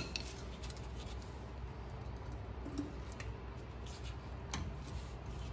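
Faint metal clicks of needle-nose pliers working a cotter pin at a drum-brake spindle nut, with one sharper click about four and a half seconds in, over a steady low hum.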